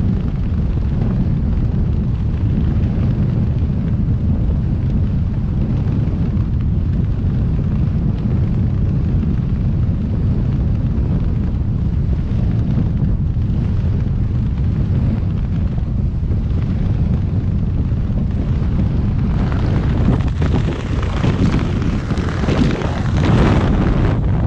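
Freefall wind rushing over a skydiver's body-mounted camera microphone: a loud, steady low rush. From about 19 seconds in it turns harsher and more uneven as the parachute is deployed and opens.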